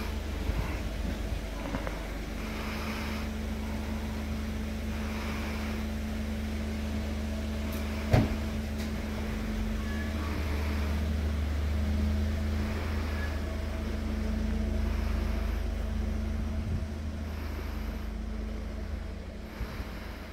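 Steady low mechanical hum with a constant tone running under it, and one sharp click about eight seconds in.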